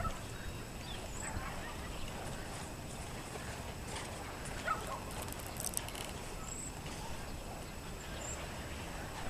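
Steady wind noise rumbling on the microphone of a camera hanging from helium balloons. A few faint short chirps sound through it, and there is a brief rustle about halfway through.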